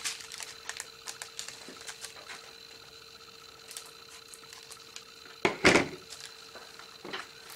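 Light clicks and handling noises from a small plastic bag of drills during the first couple of seconds. About five and a half seconds in, one loud short clatter follows as a pair of metal scissors is set down on the tabletop.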